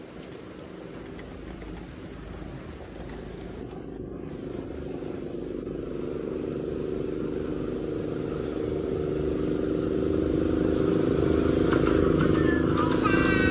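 A motor vehicle's engine running and growing steadily louder as it draws closer.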